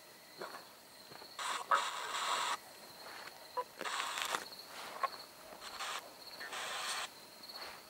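Bursts of radio static from a handheld ghost-box device, each half a second to a second long, coming every couple of seconds as it scans for spirit replies. A faint steady high tone runs underneath.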